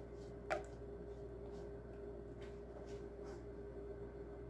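Quiet kitchen room tone with a steady faint hum and a few soft, light taps.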